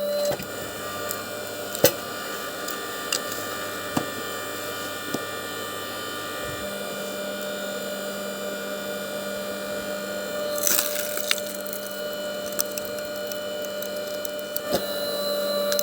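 Power saw running steadily through stove wood, a constant motor tone with scattered splintering cracks and a denser crackle about eleven seconds in.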